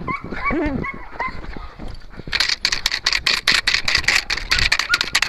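Belgian Malinois whining and giving short high yips while held on a leash, excited to join the chase. About two seconds in, a fast run of rasping strokes, several a second, takes over.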